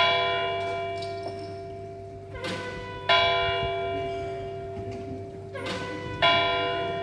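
Tower clock bell of the town hall striking, three strokes about three seconds apart, each ringing out and slowly fading under a steady hum.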